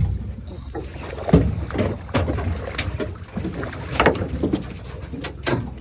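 A hooked yellowtail thrashing and splashing at the surface beside the boat's hull as it is reeled in, several sharp irregular splashes, over the steady low rumble of the boat.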